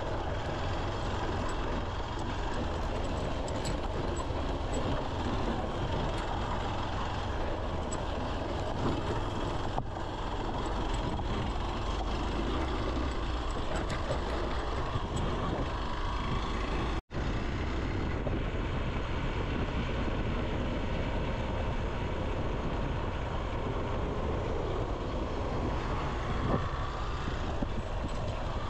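Motorcycle ridden along a gravel road: steady engine, tyre and wind noise, which drops out for an instant about 17 seconds in.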